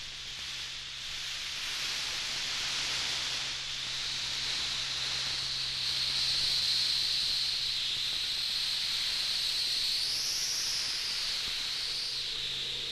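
Electronic synthesizer texture of filtered hissing noise, with a bright band that swells and begins to sweep up and down near the end, over a faint steady low drone.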